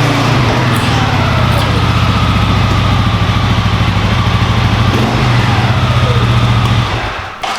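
CFMOTO CForce 625 ATV engine running steadily with a fast pulsing beat, stopping near the end.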